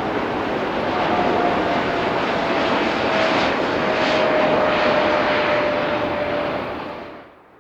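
Jet airliner flying past: a loud rushing engine noise with a whine that slowly falls in pitch, cutting off suddenly near the end.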